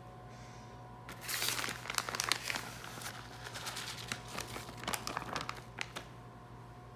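Plastic bag of shredded Parmesan crinkling as it is handled and shaken out over the dish, in a run of crackly bursts that starts about a second in and stops shortly before the end.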